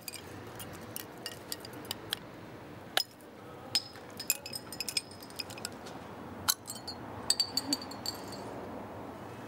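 Small glass bottles clinking and knocking, a scatter of sharp clicks and short ringing clinks as a bottle cap is opened and the bottles are handled, over a steady low background hiss.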